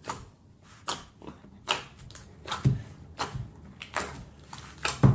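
Clear pre-made slime being squished and pressed by hand, giving about a dozen short sticky clicks and squelches at irregular intervals, a couple of them with a dull thump.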